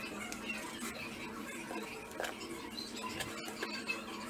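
Faint scratching of a pencil on a plastic sheet, with a few light clicks of a steel ruler being shifted on a wooden bench, over a steady low hum.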